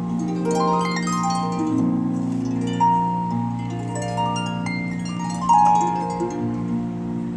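Solo harp playing a light waltz live: plucked melody notes ringing and fading over sustained low bass notes.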